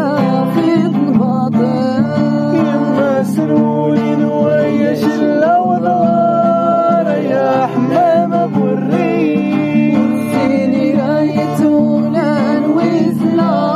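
Acoustic guitar strummed and plucked, accompanying a voice singing a wavering, ornamented melody.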